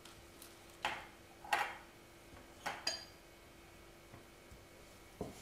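A handful of short knocks, scrapes and one light metallic clink as a knife and a wooden spatula are handled around a nonstick frying pan, pushing a pat of butter across the pan, over a faint steady hum.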